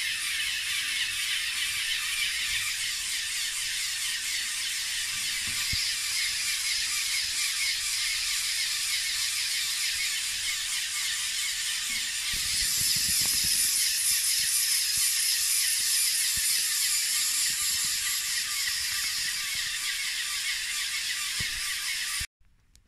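Eight motorized LEGO pneumatic pumps running together with a steady, high buzzing rattle of small electric motors and plastic pump pistons, supplying air to a LEGO inline-three pneumatic engine. The sound grows louder and hissier about halfway through, then cuts off suddenly near the end.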